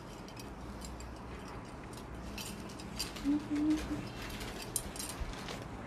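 Half-silk machine-made jamdani saree rustling and crackling as it is unfolded and shaken out, a quick run of rustles from about two seconds in.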